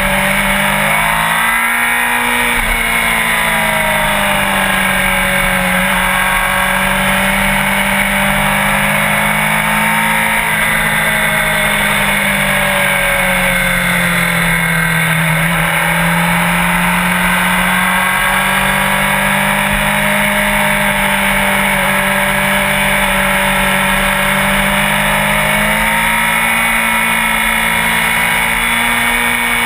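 Sport motorcycle engine running steadily under way, its note slowly dipping and rising again as the revs change.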